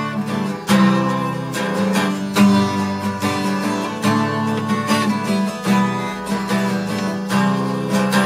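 Acoustic guitar strummed, chord after chord.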